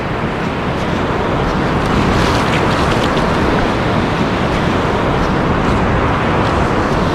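Steady rush of wind buffeting the microphone, with surf washing up the beach underneath.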